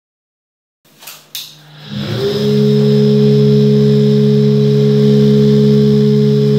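Restored vintage electric centrifugal blower starting up: a couple of clicks about a second in, then the motor spins up within half a second and settles into a loud, steady hum.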